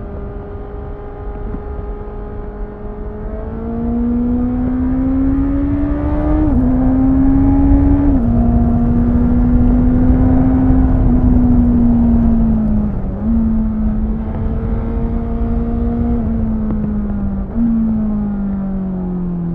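Inline-four engine of a 2018 Honda CBR650F, heard from on board. It holds a steady note, then accelerates hard with two quick upshifts, each a sudden drop in pitch. After that it eases off, with two downshifts that make the note jump up, and the pitch falls away under engine braking near the end. Wind rushes over the microphone.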